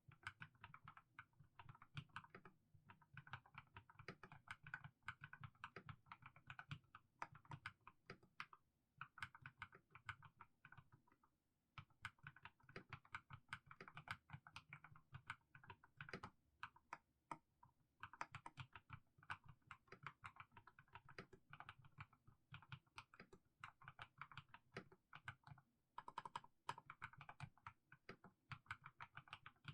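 Mechanical keyboard with fully lubed Haimu Sea Salt switches typed on at a slow, unhurried pace: a continuous run of quiet keystrokes, pausing briefly about halfway through.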